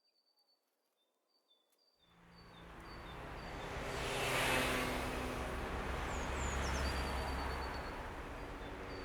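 Outdoor ambience of birds chirping over a low rumble of traffic. The rumble fades in about two seconds in, swells near the middle and then holds steady.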